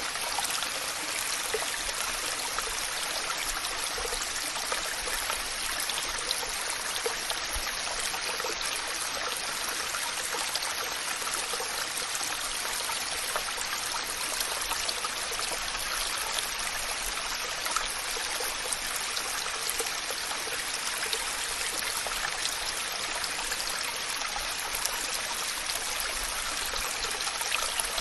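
Waterfall with water rushing and splashing in a steady, unbroken hiss.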